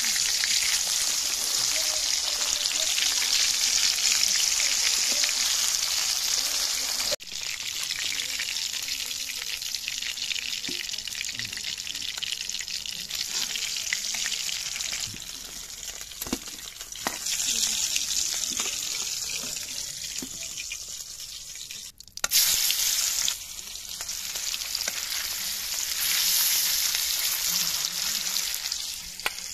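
Katla fish pieces sizzling as they fry in hot oil in a metal kadai, with a steel spatula scraping and clicking against the pan as the pieces are turned. The sizzle drops suddenly about seven seconds in and again near twenty-two seconds, then builds back up.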